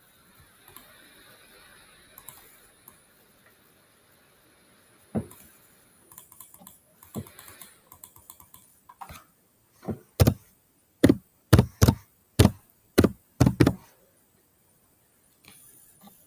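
Typing on a computer keyboard: a few scattered light clicks, then a quick run of about nine sharper keystrokes past the middle as a single word is typed.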